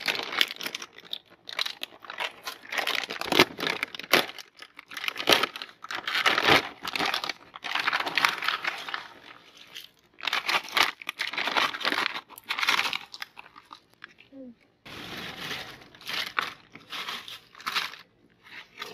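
A crinkly snack bag of Doritos tortilla chips being shaken and crumpled as the chips spill out onto a plastic tray, rustling and crunching in irregular bursts with short pauses.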